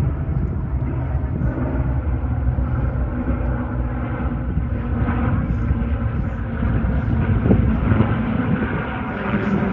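P-51 Mustang's V-12 piston engine running steadily.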